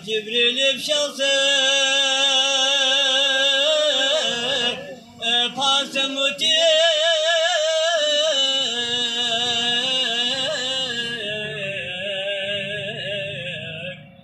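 Unaccompanied man's voice singing a Balti devotional qasida into a microphone. He draws out long held notes with a wavering ornament, breaking off briefly about five seconds in.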